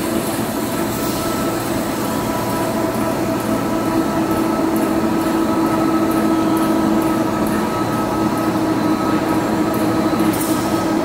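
Steel coil slitting line running: slit metal strips feeding through the strip separator and winding onto the recoiler, a steady mechanical drone with constant whining tones.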